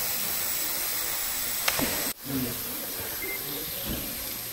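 Steady background hiss of room noise in a large hall, with a single sharp click near the middle and a sudden brief dropout just after it.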